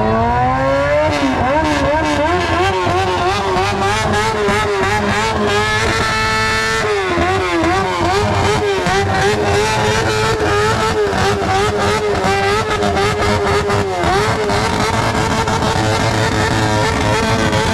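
Racing motorcycle engines revving, held at high revs with a wavering, unsteady pitch and brief dips and rises.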